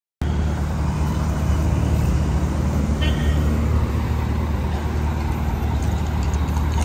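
Street traffic noise with a vehicle engine idling, a steady low hum. It cuts in abruptly just after the start.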